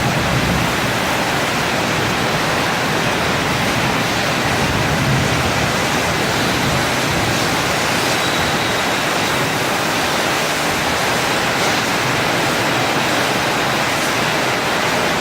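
Portable CNC cutting machine's torch cutting with a loud, steady hiss, unbroken throughout, with a faint high whine joining about halfway through.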